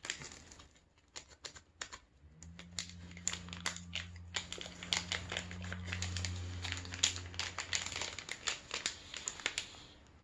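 Clear plastic wrapper of an ice pop crinkling and crackling as it is worked open by hand. A low steady hum runs underneath from about two seconds in until about eight seconds.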